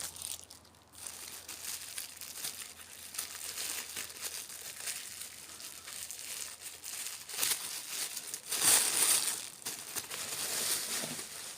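Scraping and rustling from knife-sharpening gear being worked and handled: irregular short scratchy strokes, with a louder scrape about nine seconds in.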